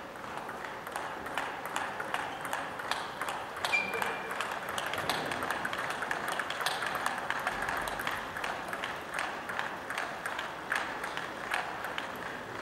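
Table tennis warm-up rally: a table tennis ball clicking back and forth off rubber bats and the tabletop in quick, irregular succession, over steady background hall noise.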